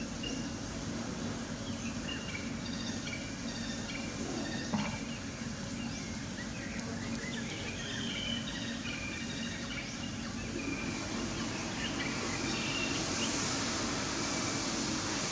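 Steady outdoor background hum and hiss, with many short high chirps repeated through most of it, and a single sharp knock about five seconds in.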